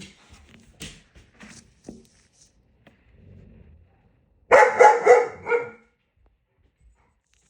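German shepherd giving a short burst of excited barks about four and a half seconds in, with faint clicks and shuffling before it.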